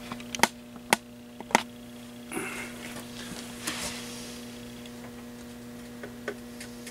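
Three sharp clicks in the first second and a half, then a couple of brief scraping sounds, from hands working on a B&K 747B tube tester, over a steady electrical hum.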